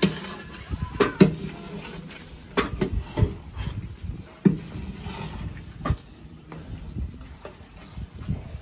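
Long wooden paddle stirring diced brinjal and potatoes in a large aluminium cooking pot, knocking against the metal in irregular knocks.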